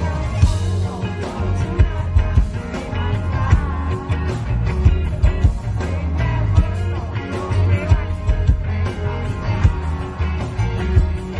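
Live rock band playing: electric guitar over bass and a steady drum beat, with a sung vocal line in the first few seconds.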